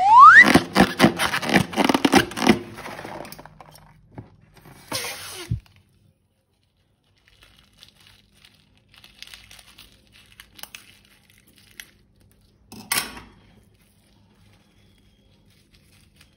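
Slime being squeezed and worked by hand, with sticky crackling and tearing sounds. The loudest part is a dense run of crackles over the first three seconds, opening with a short rising squeak. After that come faint scattered crackles, with a brief sharp rasp about five seconds in and again near thirteen seconds.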